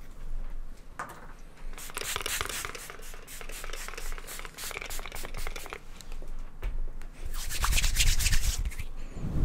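Close rubbing and scratching on a fluffy microphone cover, standing in for hair being styled. It comes as two spells of quick scratchy strokes, the first from about a second in and the second near the end, with a low rumble from handling of the microphone.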